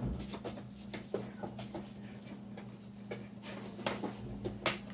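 Wet wipe rubbing and scuffing over the plastic top of a robot vacuum cleaner, light irregular scrapes and small taps as the dirt is wiped off.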